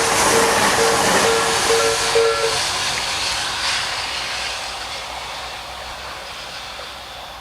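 Level crossing's electronic warning bell (the Tobu crossing sound) ringing about two and a half strokes a second and stopping about two and a half seconds in, as a passing electric train's wheel and running noise fades away.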